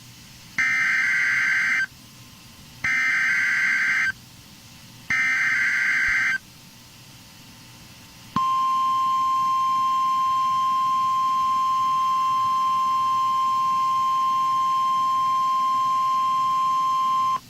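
Emergency Alert System SAME header on NOAA Weather Radio: three short bursts of digital data warble, each a little over a second long. About eight seconds in, the steady single-pitch warning alarm tone starts and holds, signalling that a weather warning broadcast follows.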